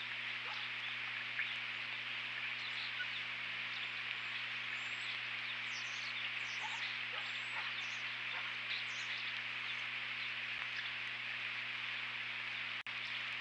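Many short, high bird chirps, clustered in the middle, over a steady hiss and a low electrical hum from the nest camera's microphone. The sound cuts out for an instant near the end.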